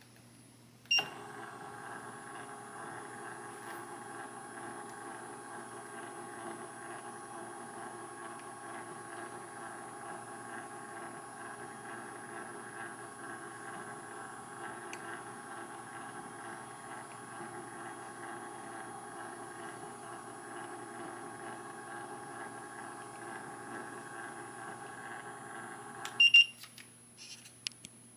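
A short beep, then a steady hum from an electric appliance made of several level tones, running for about 25 seconds and stopping with another beep.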